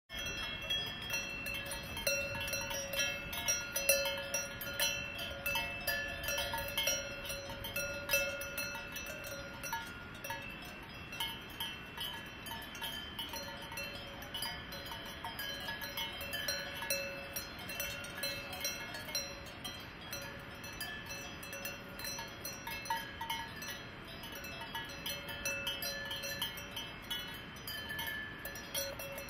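Cowbells worn by grazing cattle, several bells of different pitch clanking and ringing irregularly and overlapping as the animals move and feed.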